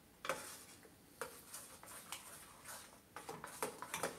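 Spoon stirring thick puréed carrot soup in a stainless steel saucepan, with faint, irregular clinks and scrapes against the side of the pan.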